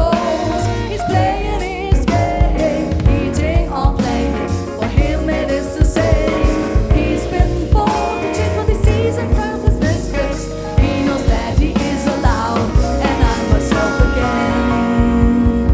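Live jazz-pop quintet playing: drum kit, double bass, piano and guitar, with a melody line that bends up and down in pitch over the band.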